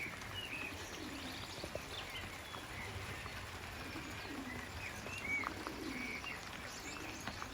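Racing pigeons cooing: several low, rolling coos one after another, with short higher bird chirps scattered among them.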